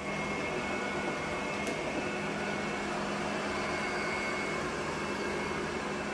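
Steady mechanical hum with hiss, unchanging throughout.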